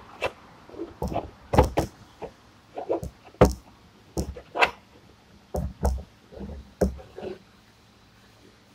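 Irregular metal knocks and clanks, a dozen or so, from hand work on a truck engine's belt pulleys and brackets during a belt change; they stop about seven seconds in.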